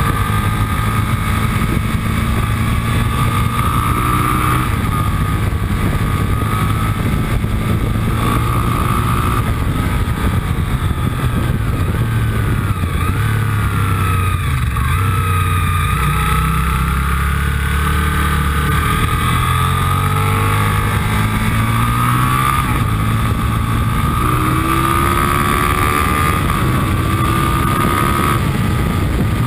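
Motorcycle engine running hard on a track lap, heard from the bike itself. The engine note drops for a few seconds about halfway through as the bike slows, then rises again as it accelerates.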